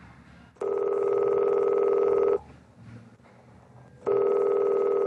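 Telephone ringing: two long electronic rings, each nearly two seconds with a fast trill, separated by a pause of about the same length.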